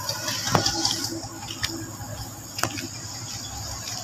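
Steady high-pitched insect chirring, like crickets or cicadas in forest, over a low rumble, with three sharp clicks about a second apart.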